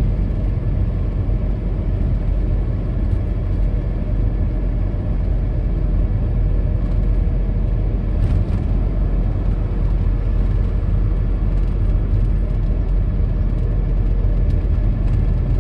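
Steady road and engine noise of a car cruising on an expressway, heard from inside the cabin: an even low rumble with tyre hiss from the wet road surface.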